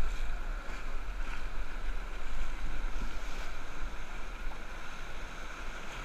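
Rushing whitewater of river rapids, a steady hiss, with a low wind rumble on the camera microphone.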